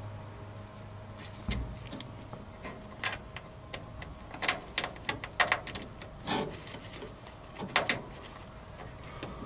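Irregular clicks, taps and light knocks of hands and small tools handling a wire while it is being spliced, scattered and densest around the middle.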